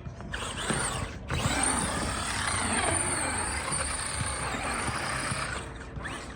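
Small electric RC trucks driving hard over the ramps, a whine from their motors mixed with rolling and rattling noise. It cuts out briefly about a second in, then runs on steadily.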